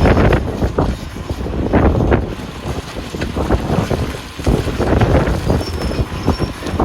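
Wheel loader engine working with a heavy low rumble, broken by irregular knocks and gusts of wind on the microphone.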